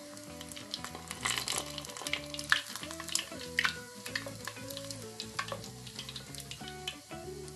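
Bread-wrapped ice cream deep-frying in hot oil in a saucepan: a steady sizzle with frequent sharp crackles and pops.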